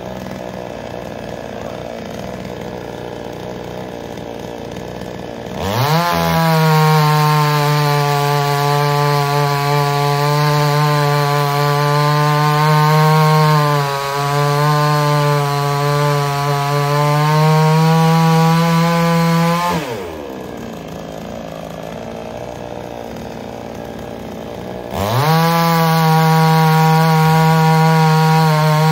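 Gasoline chainsaw idling, then revved to full throttle about six seconds in and held there for some fourteen seconds as it cuts into a log, its pitch dipping slightly under load. It drops back to idle for about five seconds, then revs up again near the end.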